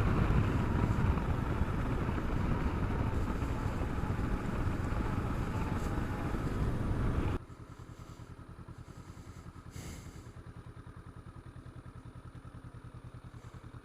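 Motorcycle on the move: engine and wind noise. About seven seconds in, the sound drops abruptly to a much quieter, steady, evenly pulsing engine note.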